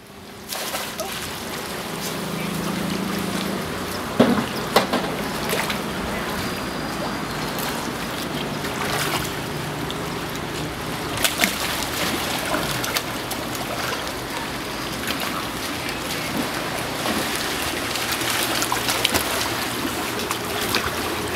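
Pool water sloshing and splashing as several elephant seals swim and dive together, over a steady rush of water, with a few sharper splashes, the loudest about four seconds in.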